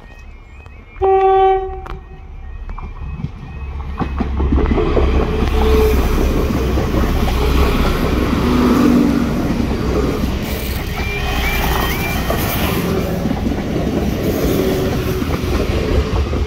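NI Railways diesel multiple unit sounding one short horn blast about a second in, then passing close by over the level crossing: a heavy rumble with clickety-clack of wheels over the rail joints, loud from about four seconds in.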